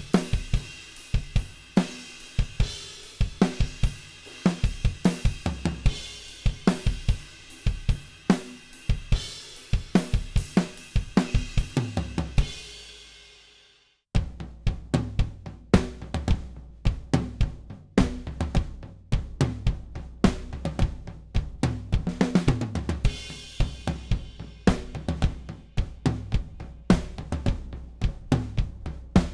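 Drum kit played in grooves of kick, snare, toms, hi-hat and cymbals, recorded through the Earthworks DK6 drum mic pack (DM6 kick mic, SR20 overheads, DM17 snare and tom mics). About halfway in the first groove ends on a ringing cymbal and cuts off, then a second groove starts with a heavier low end.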